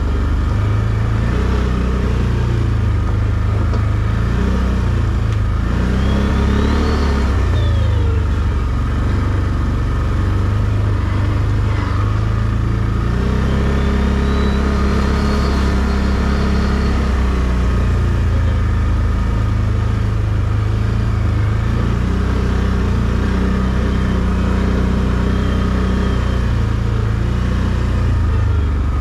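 ATV engine running under way at low trail speed, its note rising and falling a few times with the throttle.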